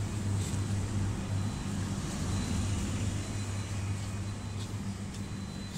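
Steady low hum over a hiss from a small shop's cooling machinery, its refrigerated display cases and air conditioning running, with a few faint clicks near the end.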